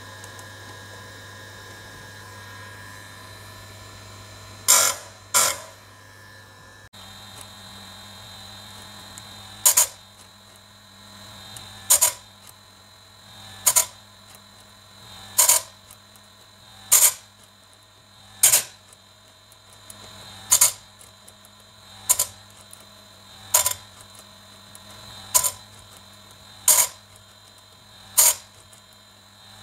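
Electric bench chainsaw-chain sharpener with its motor running steadily, its grinding wheel brought down onto one cutter tooth after another: a short, loud grind roughly every one and a half to two seconds, over a dozen in all. Each cutter is ground down to the same preset stop so that the teeth on both sides of the chain come out even.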